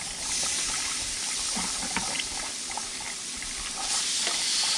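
Walleye fillets sizzling in butter on a hot Blackstone flat-top griddle as they are laid down with tongs. The sizzle swells just after the start and again near the end as each fillet hits the griddle.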